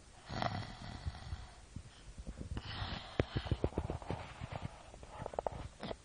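A girl snoring: noisy breaths a couple of seconds apart, the longer ones broken into a quick rattling flutter.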